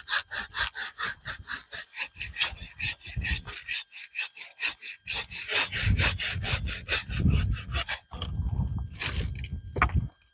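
Hand saw cutting dry branches for firewood, in fast, even back-and-forth strokes of about four to five a second. The sawing stops about eight seconds in, and a couple of separate knocks follow.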